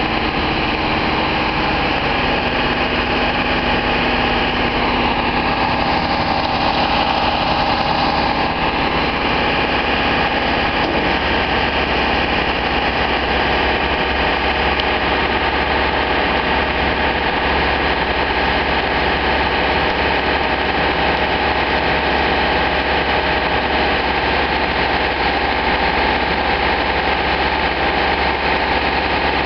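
Engine of a telescopic boom lift running steadily while its boom and platform are operated, with a change in its tone between about six and nine seconds in.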